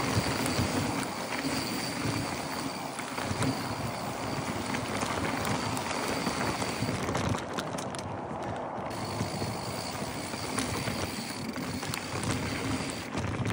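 Mountain bike rolling down a dry dirt trail: knobby tyres running over packed dirt and small loose stones, with steady rattling and small knocks from the bike over the bumps.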